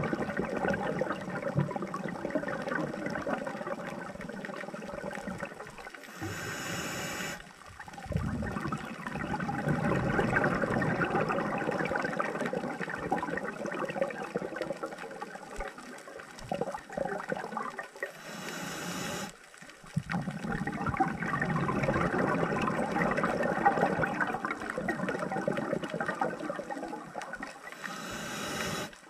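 Scuba regulator breathing heard underwater: three short hissing inhalations about every ten to eleven seconds, with long rushing streams of exhaled bubbles between them.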